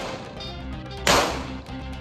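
One pistol shot from a 9mm Beretta 92FS about a second in, sharp and ringing out in the indoor range, over steady background music; the tail of the previous shot is still fading at the start.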